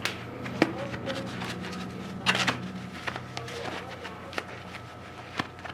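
Scattered clicks, knocks and rubbing as a rubber scooter tire is pushed and levered onto its wheel rim by hand, with a small cluster of knocks a little past two seconds in, over a low steady hum.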